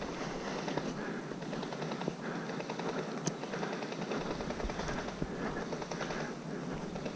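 Airsoft guns firing: a spatter of rapid clicks, with one sharper crack about three seconds in.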